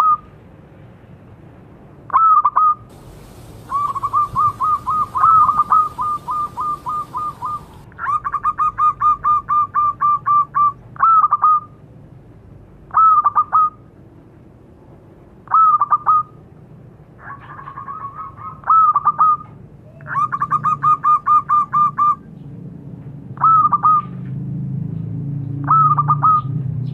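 Zebra dove (perkutut) cooing. Short phrases of a few ringing coos repeat every couple of seconds, and between them come longer trains of rapid staccato coos, about four notes a second, each lasting several seconds. A low rumble rises in the background over the last few seconds.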